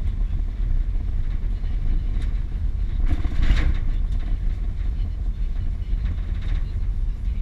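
Steady low rumble of a car's engine and tyres on the road while driving, heard from inside the cabin, with a brief louder noise about three and a half seconds in.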